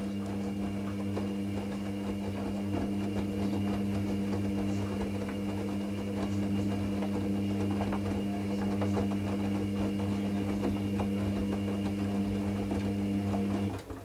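Hoover Nextra front-loading washing machine tumbling a wet load of towels during the wash phase: the drum motor hums steadily while the laundry and water splash and slosh inside the drum. The motor stops abruptly near the end.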